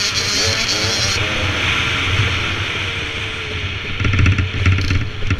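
Dirt bike engine running under way on a dirt trail, its pitch rising and falling with the throttle, over steady wind rush on a helmet-mounted microphone. About four seconds in it gets louder and rougher with rapid pulsing as the engine is revved harder.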